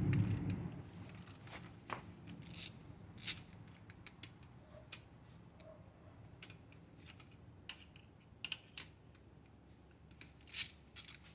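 Hand tools and metal engine parts clicking and clinking now and then, in scattered sharp knocks during an engine teardown. A louder low noise dies away in the first second.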